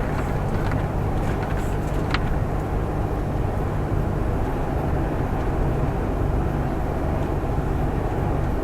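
Truck cab interior noise of a Volvo semi-truck driving on a rough, broken asphalt road: a steady engine and road rumble. There are a couple of brief clicks near the start and about two seconds in.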